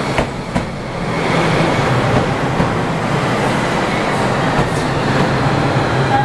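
Tokyu Setagaya Line train passing over the level crossing: two sharp clicks of the wheels over rail joints near the start, then a steady running rumble with motor hum that grows louder about a second in.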